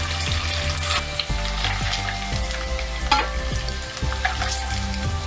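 Peeled boiled eggs frying in hot oil in a kadhai: steady sizzling dotted with sharp crackles and pops. A steel spoon turns the eggs in the pan.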